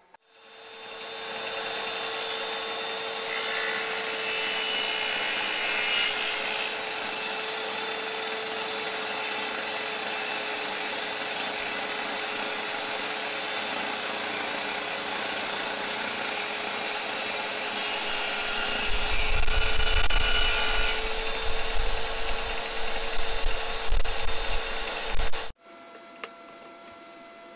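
Table saw running: the motor winds up to speed and runs with a steady hum, then rougher, louder cutting through wood from about 19 seconds in, before the sound cuts off suddenly.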